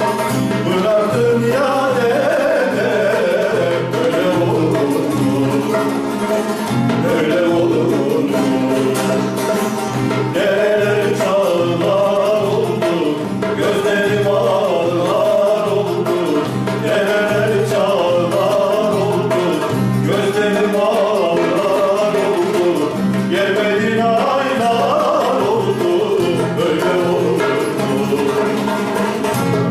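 Male voice singing a Turkish folk song, accompanied by a plucked bağlama (saz), with guitar and a darbuka keeping a steady beat.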